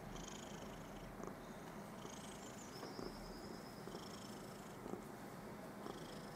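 Domestic cat purring steadily while being stroked, a sign of contentment.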